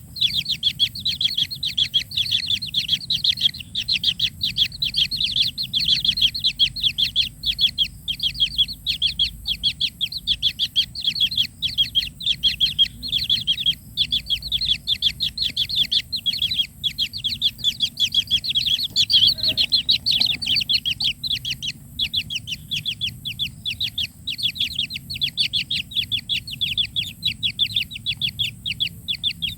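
Kingfisher nestlings begging for food: a rapid, unbroken series of short high-pitched calls, several a second, without let-up.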